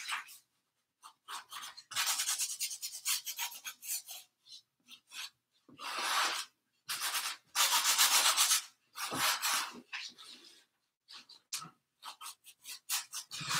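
Cloth rag scrubbing oil paint onto a stretched canvas, in several bursts of quick back-and-forth strokes with short pauses between.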